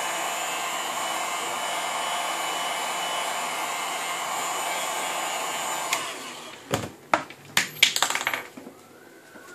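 Electric heat gun blowing steadily as it warms a phone's cracked screen glass before the glass is pried off. It is switched off about six seconds in, and a handful of sharp knocks and clicks follow.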